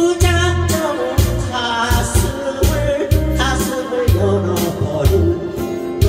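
A woman singing a Korean trot song into a microphone, accompanied by acoustic guitar over a backing track with a steady bass-and-drum beat of about two beats a second.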